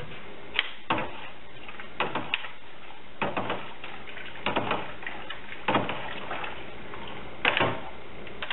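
Metal utensils knocking and scraping against a stainless steel brew pot of hot wort, about a dozen brief irregular clanks.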